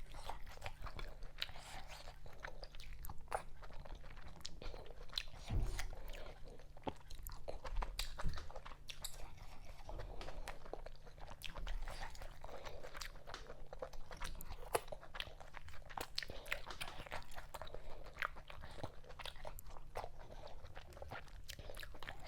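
Close-miked eating: wet chewing and lip smacks of fufu with okra vegetable soup, a steady stream of small clicky mouth sounds. Two duller low thuds come about five and eight seconds in, over a faint steady low hum.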